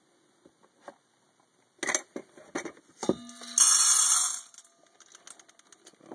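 Freshly roasted coffee beans being tipped into a stainless steel bowl. Scattered clicks and knocks, then a knock about three seconds in sets the bowl ringing, followed by a dense rush of beans rattling against the steel for about a second.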